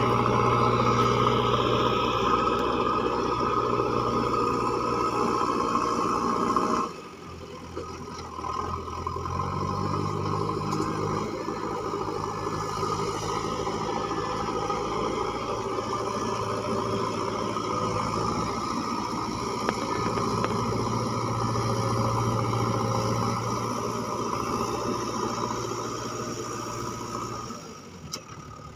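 JCB 3DX backhoe loader's diesel engine running steadily as the machine drives over rough dirt. Its note drops suddenly about seven seconds in, then picks up and rises again a couple of seconds later, and dips once more near the end.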